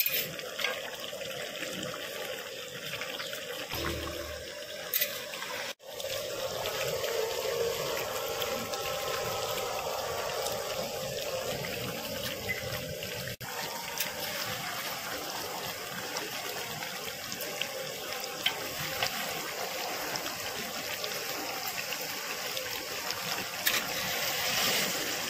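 Chicken pieces sizzling and bubbling in their own released juices in a large iron karahi, being cooked down until the liquid reduces. A steady hiss with a few faint ticks.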